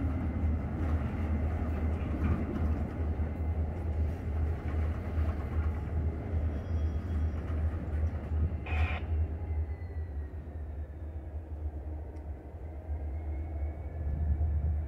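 Freight boxcars rolling slowly along the rails with a steady low rumble and faint, thin wheel squeals. About nine seconds in there is one brief, louder metallic sound.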